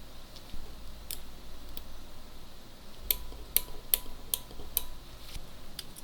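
Small hard clicks of metal camera parts and tools being handled on a vintage film camera under repair: a couple of scattered clicks, then a run of five about every 0.4 s with a faint ringing tone, and one more near the end.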